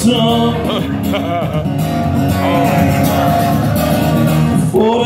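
Music: a song with a singing voice over instruments, playing loud and steady.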